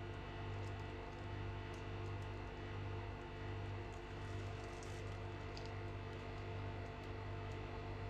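Steady low electrical hum made of several fixed tones, with a few faint light ticks over it.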